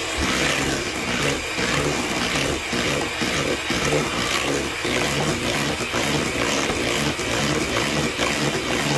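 Handheld electric mixer running steadily, its beaters whipping potatoes into mash in a metal bowl, with frequent small clicks of the beaters against the bowl.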